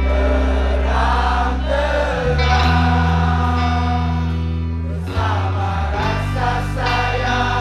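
Live band playing through the concert sound system: electric guitars and bass under sustained singing, recorded from the crowd.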